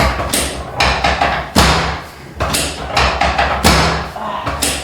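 Background music with a steady thumping beat.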